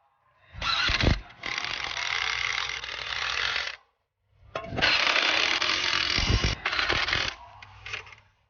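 A wrench running on the electric bike's hub-motor axle nuts as the motor is refitted to the frame. It makes two runs of dense, rapid mechanical clatter, each about three seconds long, with a short pause between them.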